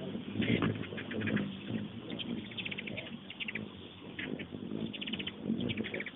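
Hummingbirds chittering at a busy nectar feeder: several quick runs of high, dry chip notes, one after another. A low hum sits underneath.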